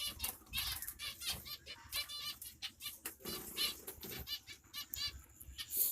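A flock of zebra finches calling, many short nasal chirps coming quickly and overlapping, with wings fluttering among them.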